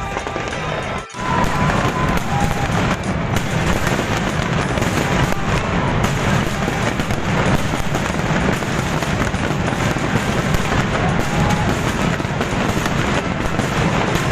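Fireworks display going off in a dense, continuous barrage of bangs and crackle, after a brief dropout about a second in.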